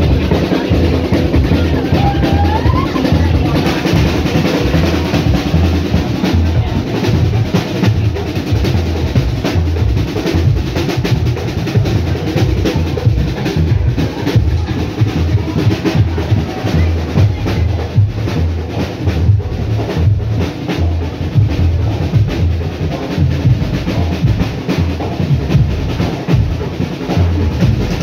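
Barbadian tuk band playing live: a big bass drum and snare drum beating a steady, driving rhythm.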